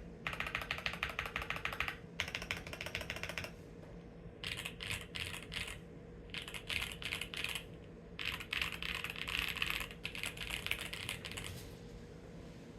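Typing on a custom GMMK Pro aluminium mechanical keyboard with factory-lubed Yunzii Cocoa Cream V2 linear switches, doubleshot PBT keycaps, an FR4 plate, tape mods and a foam-filled case. The keys are struck fast in five runs of rapid keystrokes, each lasting one to three seconds, with short pauses between them.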